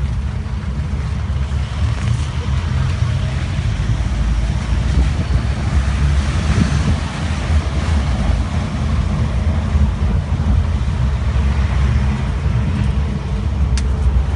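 Steady low rumble of a safari pickup truck driving along a road, heard from its open back, with engine, road and wind noise blended together.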